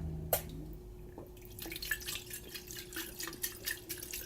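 Mouth sounds of someone sipping and tasting an energy drink: a sharp click, then a run of small wet clicks and lip smacks.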